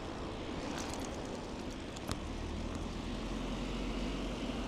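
Steady wind and road rumble of an e-bike ride, with a car running close by and a light click about two seconds in.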